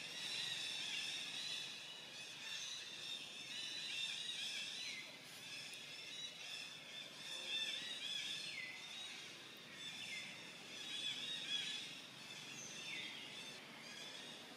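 Outdoor forest ambience: a dense, steady chorus of high-pitched wild calls, with a few short calls that fall in pitch.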